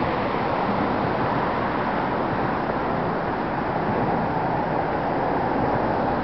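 Steady wash of road traffic passing on a nearby road, mixed with wind noise on the microphone.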